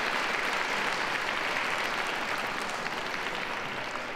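Audience applauding, the clapping easing off slightly near the end.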